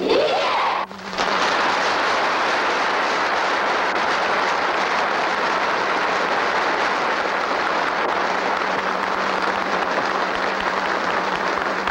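A large audience applauding steadily, beginning about a second in, over a constant low hum from an old film soundtrack.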